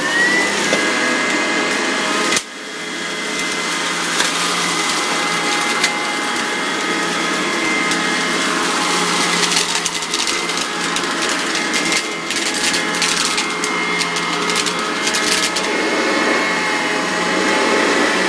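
Bagged vacuum cleaner running on carpet: a steady motor noise with a high whine, briefly dipping about two seconds in, and scattered clicks and rattles through the run.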